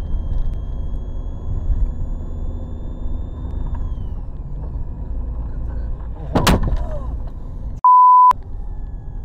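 Steady rumble of the car's engine and tyres heard inside the cabin. About six and a half seconds in, a sharp crack as debris thrown up by a passing tractor strikes and cracks the windscreen. A second or so later, a loud, short, steady censor bleep tone.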